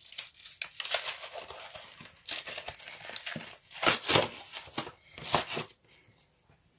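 A Pokémon TCG blister pack being torn open: plastic crinkling and card tearing in short, irregular bursts, with the loudest rips about four and five and a half seconds in, then dying away near the end.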